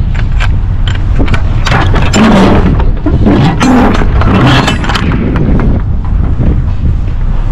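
Tractor-trailer's diesel engine running as the rig turns, a steady low rumble with scattered knocks and rattles. It grows louder and busier for a few seconds in the middle.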